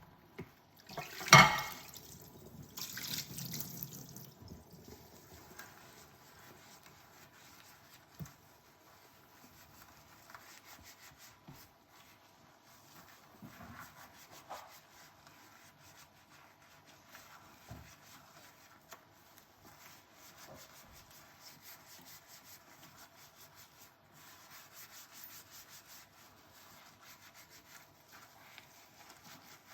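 Dishes being washed by hand at a kitchen sink: steady scrubbing of dishware, with a sharp clink of dishes knocking together about a second and a half in and a few soft knocks later on.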